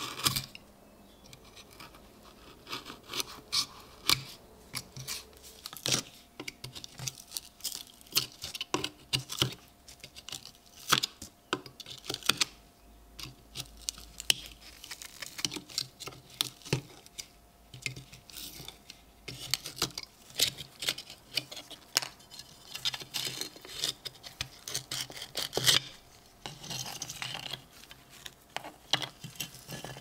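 A utility knife blade scraping and prying crumbling, rotted leather and rust crust off a corroded metal belt buckle: a steady stream of dry, irregular scratches and small crackling snaps.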